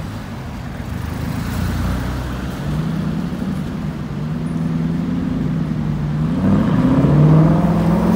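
Car engine running in slow city traffic, a low steady note that rises in pitch and grows louder about six and a half seconds in, over a general traffic rumble.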